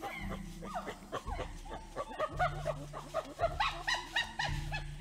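Several spotted hyenas giggling: a rapid run of short, high calls that bend in pitch, growing denser and louder about halfway through.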